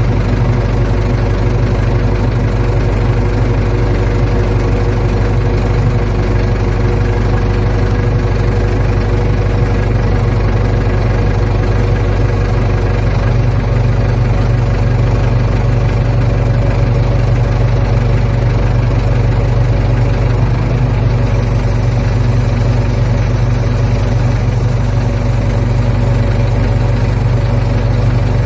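Ford 755 backhoe's engine running steadily at an even speed, with a constant low hum and no revving.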